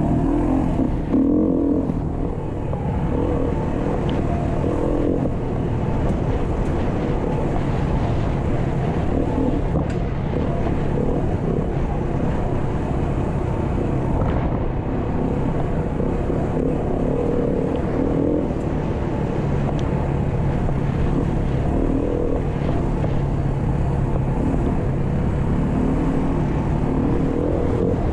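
Beta RS 500 dual-sport motorcycle's single-cylinder four-stroke engine running steadily under way, its note wavering only slightly.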